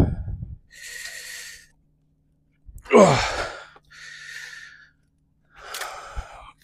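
A man's heavy breathing from the effort of hauling up a drop net, with a loud falling groan about three seconds in and a short thump near the end.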